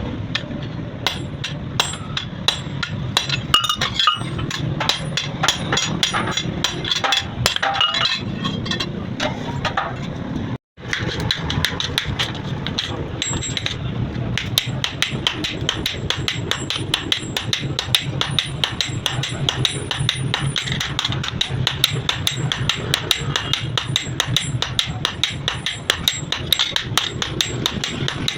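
Rapid hand-hammer blows on steel on an anvil, forging a butcher's knife blade, about five ringing strikes a second, broken off once by a brief gap about eleven seconds in.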